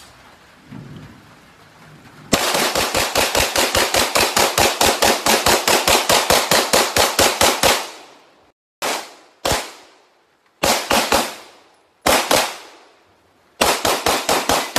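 Handgun firing: about two seconds in, a long rapid string of shots at roughly six a second for some five seconds, then single shots and short quick groups of two to four shots.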